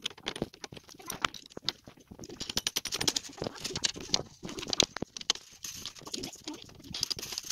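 Hands fitting small screws, wing nuts and metal connector braces onto solar panel frames: a dense, irregular run of small clicks, taps and rattles, busier from about two seconds in.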